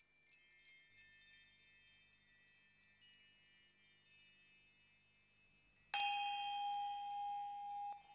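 Chimes tinkling, a cascade of high ringing notes that fade away over a few seconds. About six seconds in, a single deeper bell-like note is struck and rings on.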